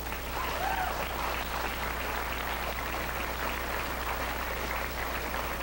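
Audience applauding, a steady spread of clapping.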